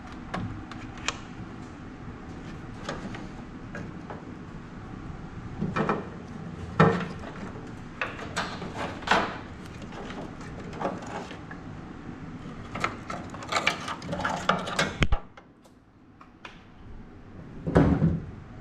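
Scattered clicks, knocks and clunks of hand work on a truck, with tools and parts being handled. The louder clunks come about a third of the way in and near the end.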